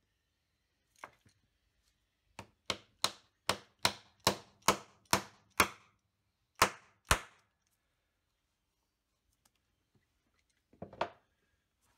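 About a dozen sharp metal taps, roughly two to three a second, each with a short ring: an aluminium bar knocking an aluminium insert home into the bore of a ball bearing. The last two taps are the hardest. A softer knock comes near the end.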